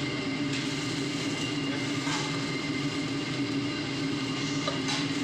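Steady roar of the stove under a wok, with dark broth being ladled and poured into the bubbling sauce and a few brief clinks and splashes of the ladle.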